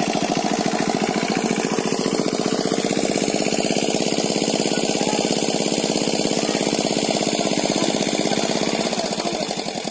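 A small engine running steadily with a rapid, even chugging; it fades near the end.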